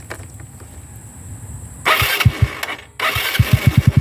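Motorcycle being started: a short burst of electric-starter cranking with a few firing thuds about two seconds in, then cranking again a second later until the engine catches and settles into an even idle through a Sun Racing V2 adjustable exhaust set to half open, about 14 exhaust pulses a second.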